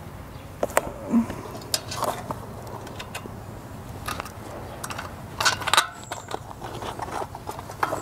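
Bicycle tyre being worked back onto the wheel rim by hand: scattered rubbing, rustling and small clicks of rubber and tube against the rim, with a busier patch about five and a half seconds in.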